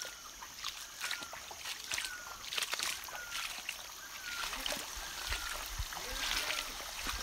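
Footsteps crunching and splashing over wet pebbles in a shallow stream bed, with irregular knocks of stone on stone over the steady hiss of trickling water. A short falling whistle repeats about once a second.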